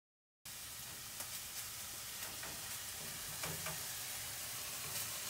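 Minced meat sizzling in a frying pan on a gas stove while it is stirred with a wooden spatula, with a few faint scrapes of the spatula against the pan. The sizzling starts abruptly about half a second in.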